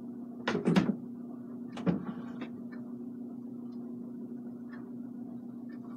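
A fingertip rubbing and pressing oil paint onto a stretched canvas on a wooden easel, giving a louder knock and rustle about a second in and a softer one near two seconds, over a steady low hum.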